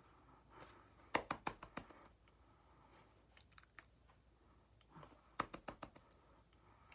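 Hands tapping and slapping against each other and the chest while signing in sign language: a quick run of about five sharp taps about a second in, and another run of about five near the end.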